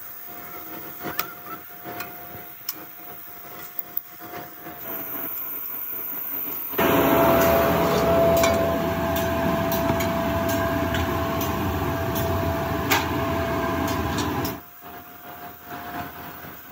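Foundry shop noise: scattered metal clinks and knocks over a steady machine hum. About seven seconds in, a much louder steady machine noise with a held tone starts, runs for about eight seconds and then cuts off abruptly.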